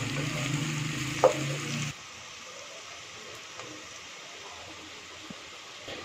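Sliced onions sizzling as they fry in a pot and are stirred with a wooden spoon, with one sharp knock of the spoon against the pot about a second in. About two seconds in the sound drops suddenly to a quieter, steady sizzle.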